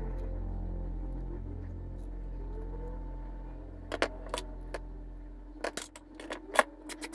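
Small metallic clicks and taps of steel wire and pliers being handled, a few about four seconds in and more near the end, over soft background music with held low tones that fades out about five seconds in.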